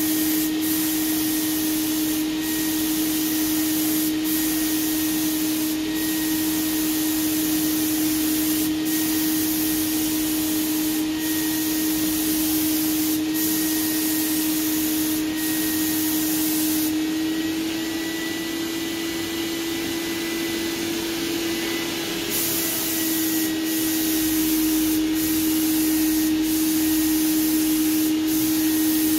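HVLP spray gun hissing as it atomises paint, over the steady hum of its turbine motor. The spray hiss stops for about five seconds past the middle, the turbine's pitch rising slightly while it is off, then the spraying resumes.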